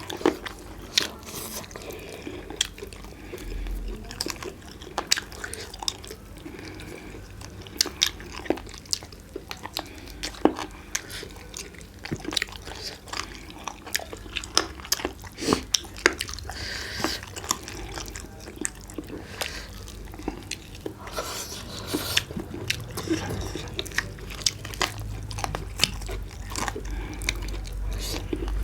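Close-miked eating of roast chicken by hand: biting, chewing and crunching, with many short sharp mouth clicks and smacks at an irregular pace.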